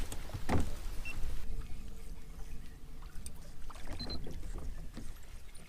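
Low rumble of wind and water around a small fishing boat on the water, with a few light clicks and knocks, fading near the end.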